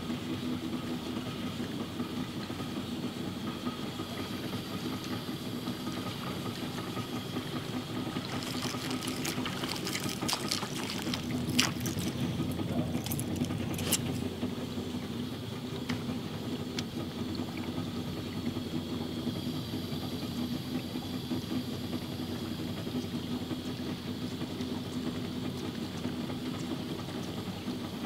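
Small boat's outboard motor running steadily at low speed. Sharp clicks and ticks come through several times in the middle.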